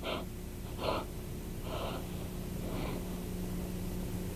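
A woman gasping in pain: four short, breathy gasps about a second apart, growing weaker, over a steady low hum.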